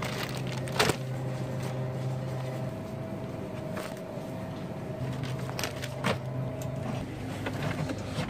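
Groceries knock now and then as they are set down in a plastic shopping cart, over a steady low electrical hum.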